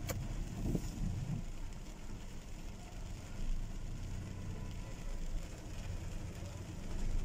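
Car engine running and cabin noise, heard from inside a car driving slowly through a flooded street: a steady low hum under an even hiss.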